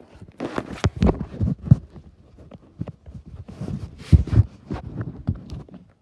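Handling noise: irregular muffled thumps and rustling as the recording device is handled with its microphone covered and rubbed. The loudest knocks come about a second in, near 1.7 s, and around four seconds in.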